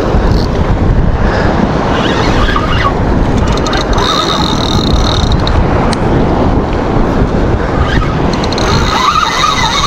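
Wind buffeting the action camera's microphone: a steady, heavy low rumble. Near the end a wavering higher whine joins it.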